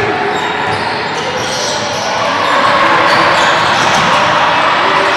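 Basketball game sounds in a gym: a ball being dribbled on the wooden court amid players' footwork, with voices in the background.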